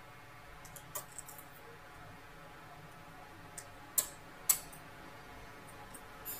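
Light clicks and taps of small parts and tools being handled on an opened laptop. The two loudest come half a second apart about four seconds in, over a faint steady background hum.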